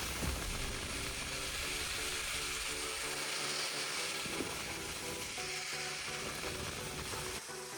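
Background music over a steady hiss of workshop tool noise; the low rumble under the hiss fades about three seconds in.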